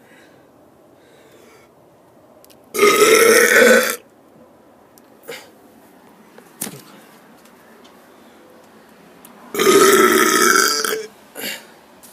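A person burps loudly on purpose twice. Each belch lasts just over a second, and the second comes about seven seconds after the first.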